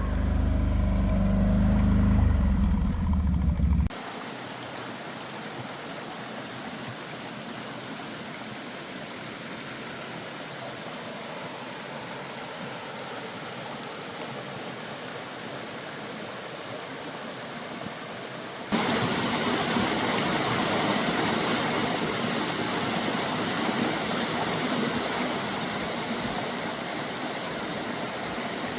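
A vehicle engine runs for about four seconds and cuts off abruptly. Then comes a steady rush of flowing water, which jumps louder and brighter about two-thirds of the way through.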